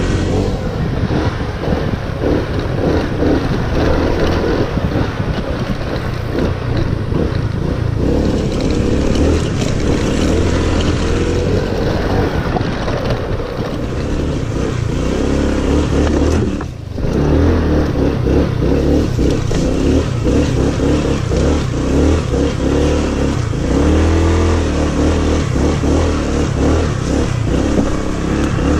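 Honda ADV 150 scooter's 150 cc single-cylinder four-stroke engine running under way on a rough dirt trail, its pitch rising and falling with the throttle, with a brief drop about two-thirds of the way through.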